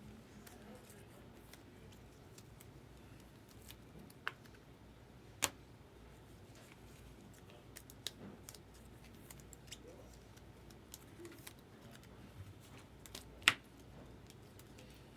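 Handling of trading cards and card packs: faint rustling and small ticks, with a few sharp clicks, the loudest about four, five and a half, and thirteen and a half seconds in.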